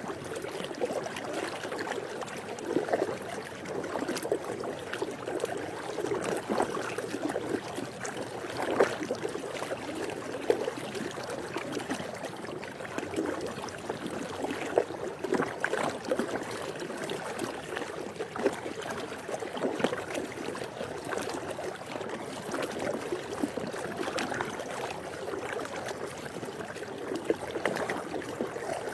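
Swimming pool water lapping and trickling continuously, with brief louder splashes scattered throughout.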